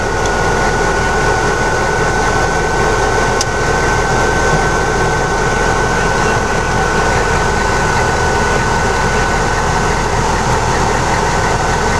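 Vehicle engine idling steadily, with a thin, steady high whine over it.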